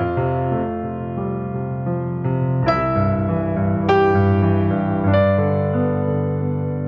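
Soft electric piano background music, slow sustained chords with a new chord struck about every second or so.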